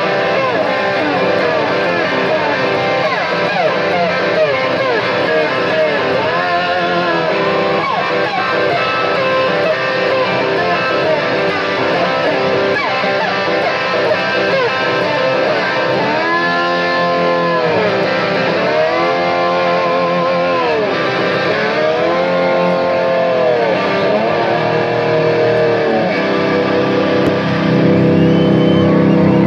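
Live rock band playing, led by electric guitar. In the middle stretch there are repeated swooping slide-guitar glides that rise and fall in pitch, in the manner of a revving motorcycle. Near the end the band gets a little louder on a sustained low chord.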